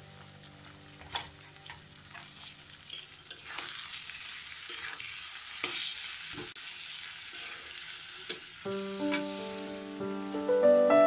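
Shrimp-head paste with onions and green chillies sizzling in oil in a black wok, with a metal spatula scraping and clicking against the pan as it is stirred. Background music comes in about two-thirds of the way through and grows louder near the end.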